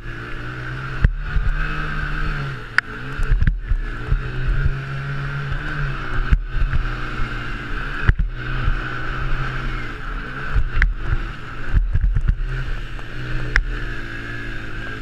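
Honda TRX90 mini quad's four-stroke engine at race pace, revving up and dropping back again and again as the throttle opens and closes, with wind rushing over a helmet-mounted camera and a few sharp knocks from the bumps.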